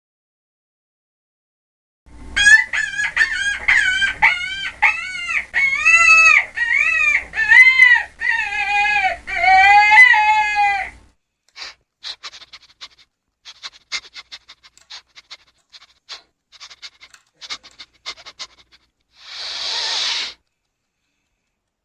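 Chicken calling: a run of loud, repeated arched squawking notes over about nine seconds. The calls are followed by a spell of short scattered clicks and then a brief hiss-like burst near the end.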